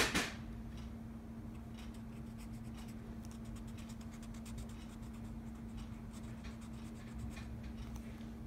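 Faint scratching of a felt-tip marker drawn across a paper worksheet in short strokes, over a steady low hum.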